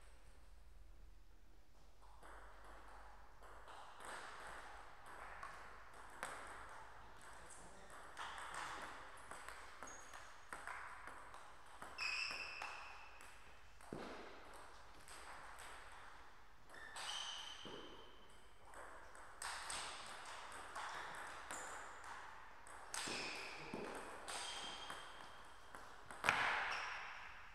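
Table tennis rallies: the celluloid-type ball clicking quickly back and forth off bats and table in runs, with pauses between points, and a sharper, louder hit near the end. Short high squeaks come in between, typical of shoes on the court floor.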